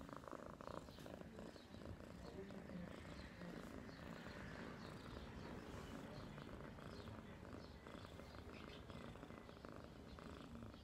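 Ginger kitten purring softly and steadily.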